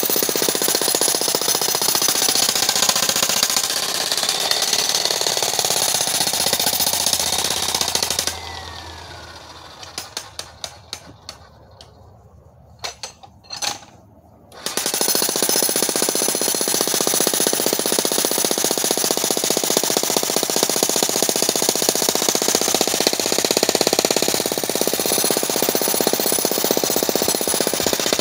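Corded electric demolition hammer breaking up rock with rapid, steady hammering. About eight seconds in it stops with a short falling whine. A few sharp knocks and two brief bursts follow, and about six seconds later it starts hammering steadily again.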